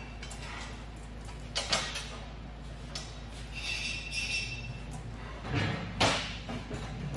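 A scissor lift cart rolling on its casters over a concrete floor, with a faint squeal about halfway through, among a few clinks and knocks of chain and steel.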